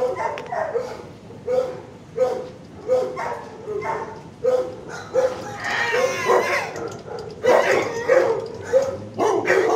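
Shelter dogs barking over and over at an even pace, about one bark every 0.7 seconds. A longer, higher call joins in around six seconds, and the barking gets busier a second or two later.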